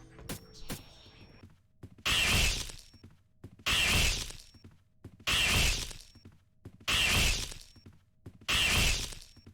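A loud crashing sound repeated five times at an even pace, about every second and a half. Each crash starts suddenly and fades over about a second, the same each time, like a looped sound effect. Two faint clicks come just before the first crash.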